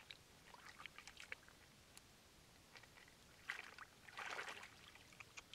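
Hands splashing and sloshing in shallow muddy water while groping for snails: faint scattered small splashes and drips, then a louder splash a little after three and a half seconds and another around four seconds in.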